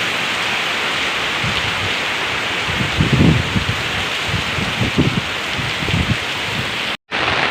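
Heavy rain falling steadily, a dense hiss, with a few low thumps about three, five and six seconds in. The sound drops out for an instant near the end.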